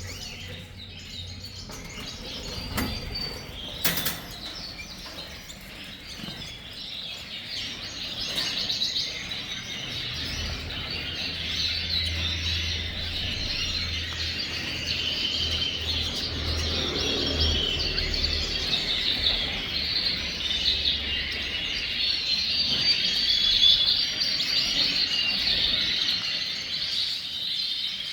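Many red canaries chirping and twittering at once, the chatter growing denser from about eight seconds in. A sharp click comes about four seconds in, and a low hum runs underneath for several seconds in the middle.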